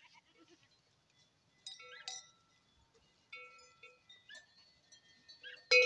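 Bells on a grazing goat herd clanking and ringing on and off, a few scattered rings, with the loudest clang near the end.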